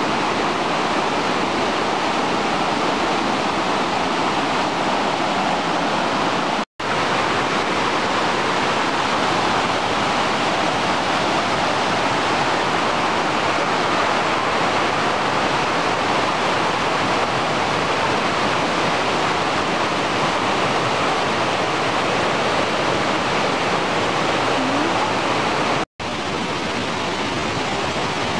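Rushing water of a rocky river running through rapids over boulders, a steady loud rush. It is broken twice by a brief cut to silence, once about a quarter of the way in and once near the end.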